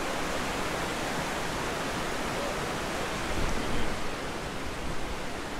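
Steady rushing of a river's rapids and small waterfall, an even roar of fast water over rocks.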